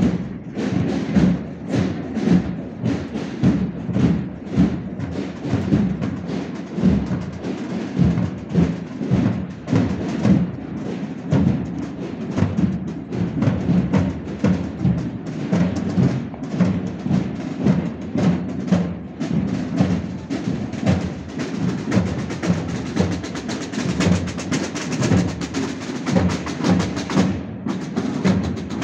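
Procession band playing a march, with drums and percussion beating a steady, regular rhythm.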